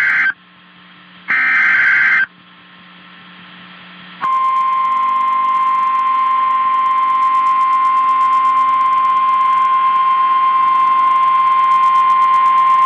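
Emergency Alert System broadcast: the tail of one screeching digital SAME header burst, then a second burst of about a second, ending about 2 s in. About four seconds in, the steady single-pitch 1050 Hz NOAA Weather Radio warning alarm tone starts and holds loud for about nine seconds.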